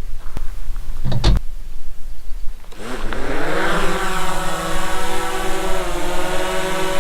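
A short knock, then the DJI Mavic Pro quadcopter's motors and propellers spin up about three seconds in. The whine rises quickly in pitch, then holds steady as the drone lifts off, with slight wavers in pitch.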